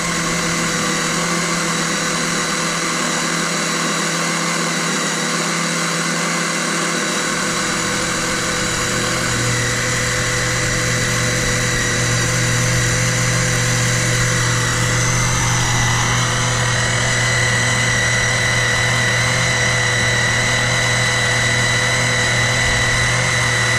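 Small electric oil-extractor pump buzzing steadily as it sucks engine oil out through a hose. Its note shifts partway through: a low hum joins about seven seconds in, and a high whine grows stronger around sixteen seconds.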